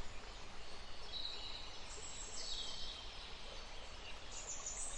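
Steady low background hiss with faint high birdsong chirps, twice: about two seconds in and near the end.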